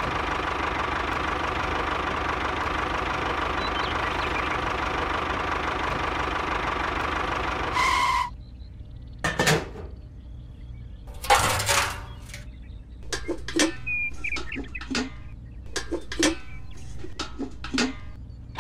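Small electric motor of a toy tractor running steadily, then cutting off about eight seconds in. After that come scattered light knocks, clicks and scrapes of small parts and little metal buckets being handled.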